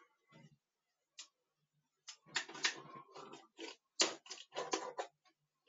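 Cardboard packaging and plastic parts of a popcorn machine being handled: rustling and clattering, with a sharp click about four seconds in.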